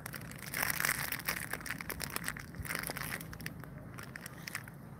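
Plastic snack wrapper crinkling and crackling in quick clicks as it is handled, loudest about a second in and again near three seconds.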